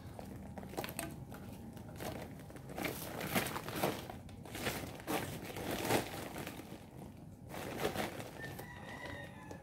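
Woven plastic cement sack crinkling and rustling in a series of short bursts as it is shaken and tipped, with the dry mix spilling out onto a heap.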